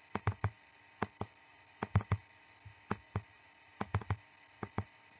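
Sharp computer-input clicks, about a dozen, mostly in close pairs a fifth of a second apart, made while handwriting on a digital whiteboard, over a faint steady background hiss.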